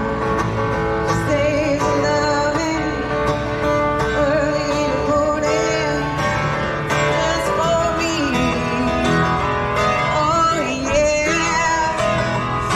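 A woman singing and strumming an acoustic guitar, amplified through PA speakers.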